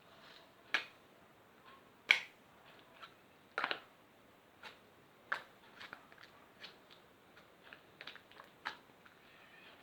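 Slime being handled, giving a string of irregular sharp clicks and pops, about a dozen in all, the loudest about two seconds in.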